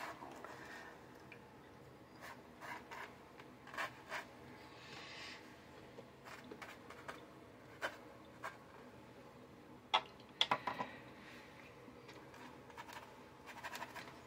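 Faint scratchy strokes of a watercolour brush on paper, with scattered light taps and a quick cluster of sharper clicks about ten seconds in.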